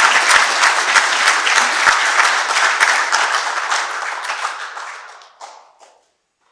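Audience applauding, the clapping thinning out and dying away about five to six seconds in.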